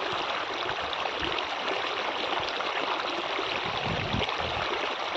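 Steady rush of flowing water, with a few brief low rumbles about four seconds in.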